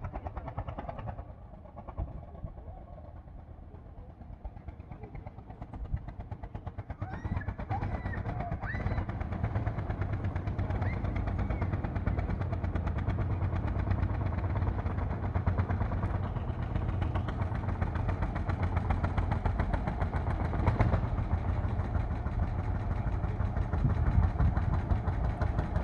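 Lanz Bulldog tractor's single-cylinder hot-bulb engine running with a fast, even pulse, growing louder as the tractor approaches and loudest near the end.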